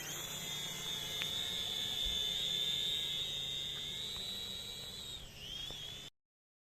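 Small quadcopter drone's motors and propellers whining: the pitch rises as they spin up, holds steady, dips briefly and recovers near the end, then the sound cuts off suddenly.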